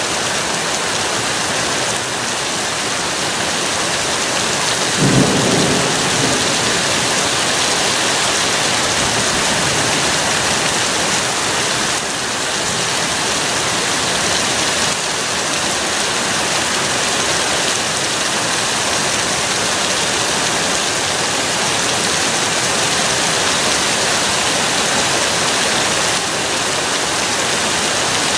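Rain falling steadily, with a clap of thunder about five seconds in that fades away over the next few seconds.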